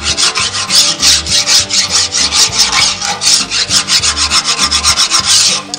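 Flat metal file rasping in quick, steady strokes along the steel rail of a chainsaw bar clamped in a vise, stopping abruptly near the end. The rail is being filed level because one side stands higher than the other.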